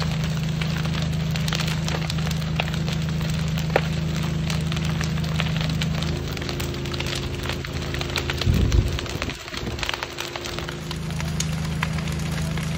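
Crackling of a burning building, many small snaps and pops over a steady low machine drone that fades for a few seconds midway and returns. A brief low rumble about eight and a half seconds in.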